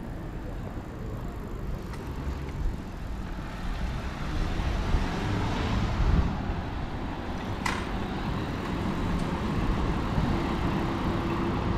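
Town street traffic: cars and a van driving past, a steady low rumble of engines and tyres that builds after a few seconds, with a steady engine hum coming in near the end and a brief sharp click about eight seconds in.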